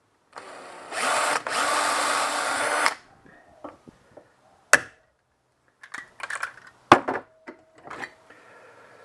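Electric hand drill running and boring a hole through an aluminium alloy piece for about two seconds, stopping about three seconds in. Separate sharp metallic clicks and snaps follow, two of them louder than the rest.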